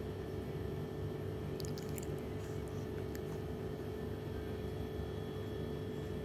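Steady background hum with a constant tone, and a few faint wet clicks about two seconds in and again near three seconds: a two-month-old baby's small mouth and lip sounds.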